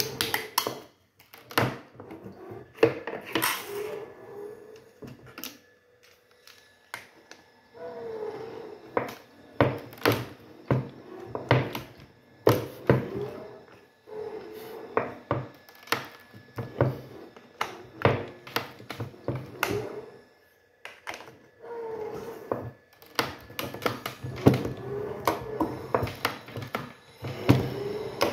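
Shotshell reloading press being worked by hand on a 12-gauge shell: metal clicks and clunks in repeated bursts of a few seconds, with short pauses between them.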